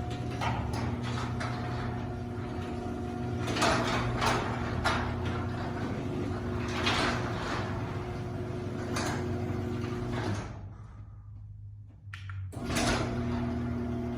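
Garage door opener motor running with a steady hum while the door travels, its panels rattling and knocking. The sound drops away for about two seconds near the end, then resumes.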